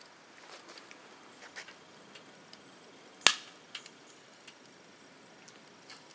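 Wood fire crackling inside a Frontier wood-burning camp stove: a few faint ticks, and one sharp, loud pop a little over three seconds in.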